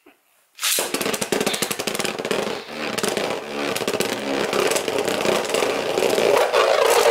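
Beyblade Burst spinning top (Ace Dragon B-133 with its Grand Dragon stamina layer) starts under a second in with a burst of clattering clicks, then spins in the plastic stadium with a loud, steady whirring scrape.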